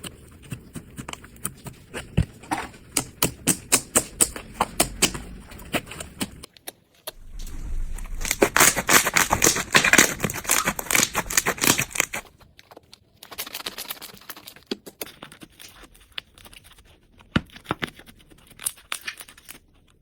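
Slime being squished and pressed by hand, giving a run of sticky pops and crackling clicks. In the middle the crackling turns dense and louder for about five seconds, then thins back to scattered pops.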